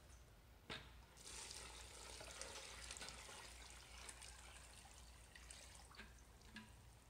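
Faint, steady splashing trickle of water being poured into dry slip materials (clay and silica powders) in a bucket. It starts about a second in, just after a single click.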